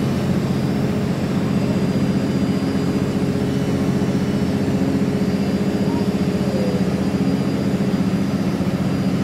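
Boat's marine diesel engine running steadily close by, a low, rapidly throbbing hum with a faint steady whine above it.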